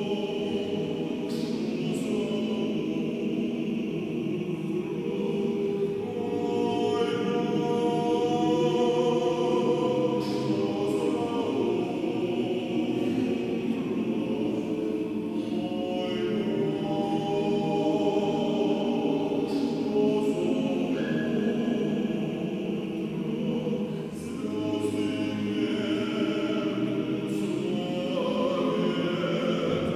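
Mixed choir of men's and women's voices singing a hymn in harmony.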